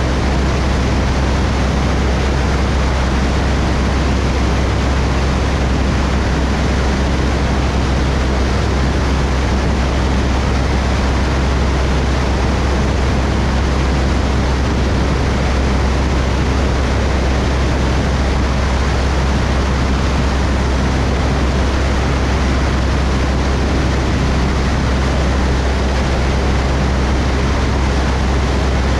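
Cessna 172's piston engine and propeller running steadily in cruise flight: a constant low drone with a wide rush of air noise over it.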